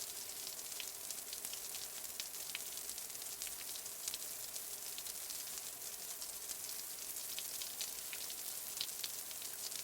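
Light rain falling steadily: an even hiss with many small scattered drop ticks.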